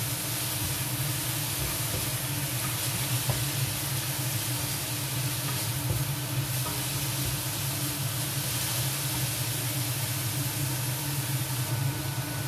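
Cubed chicken sizzling as it fries in a nonstick pan, stirred with a wooden spatula that gives a few faint taps against the pan, over a steady low hum.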